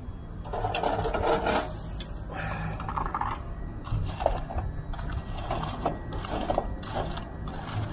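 Irregular scraping and rubbing, with a few light knocks, as things are handled at a charcoal barbecue grill.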